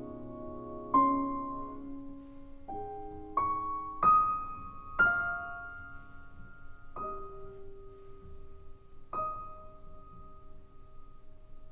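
Slow, gentle piano music: single notes and chords struck every second or two, each left to ring and fade.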